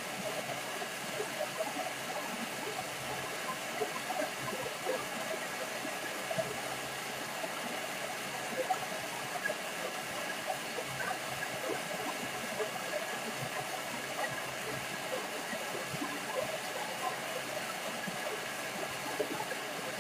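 Thermomix TM6 running at speed 7 to mix cake batter, making a steady rushing noise with no change in pitch.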